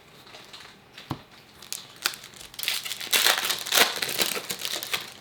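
Trading-card pack wrapper and plastic packaging crinkling as they are handled, with a couple of sharp clicks in the first two seconds and the loudest crinkling in the middle.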